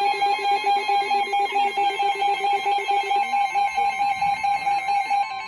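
Radio emergency alert tones: a steady high alarm tone with a second tone pulsing rapidly under it, a warbling, ringing alert. The lower pulsing part drops out partway through, and by the end only steady tones are left. It is the attention signal that opens a broadcast tornado warning.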